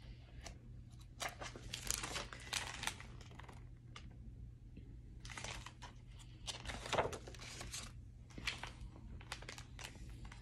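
A hardcover picture book being handled, its cover and pages rustling and crinkling as it is opened and leafed to the first page, in two spells of short rustles.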